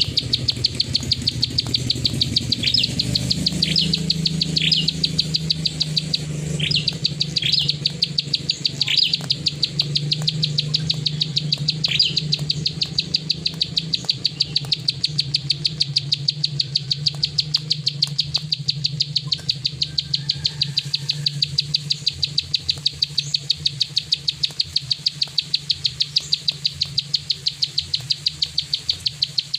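Plain prinia (prenjak sawah) calling: a fast, even run of sharp clicks at about three to four a second, with short high chirps mixed in during the first dozen seconds.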